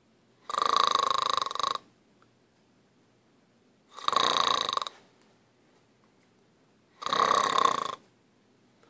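Snoring: three snores, each about a second long, coming about every three seconds in a steady breathing rhythm, with quiet in between.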